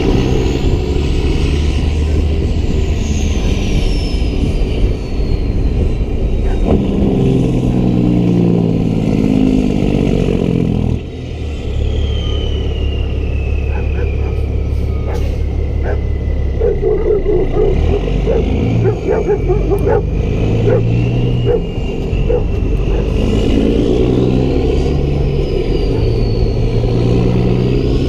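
Heavy diesel engine running, its pitch stepping up and down with changes in load, with a whistle rising and falling above it. A run of clicks comes in the middle.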